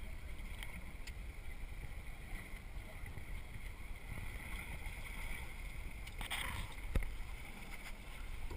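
Open-sea ambience aboard a small boat: a steady low rumble of wind and water on the camera microphone with a faint high hiss, a brief rustle about six seconds in and a sharp knock about a second later.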